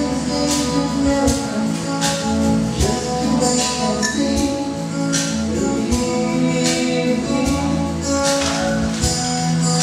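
Live acoustic band playing a slow song on acoustic guitar, bass guitar and hand percussion, with regular percussion accents over held guitar and bass notes.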